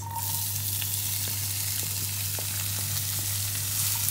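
Chopped onions tipped into hot oil with cumin seeds in a non-stick pan, sizzling steadily from the moment they land, with small scattered clicks and scrapes of a silicone spatula stirring them. A steady low hum runs underneath.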